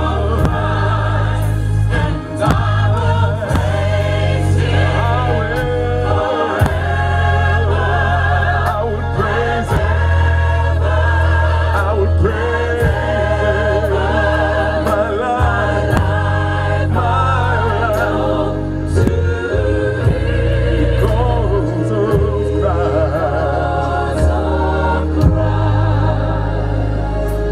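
Mixed gospel choir singing in harmony, over deep held bass notes that change every few seconds and a steady beat.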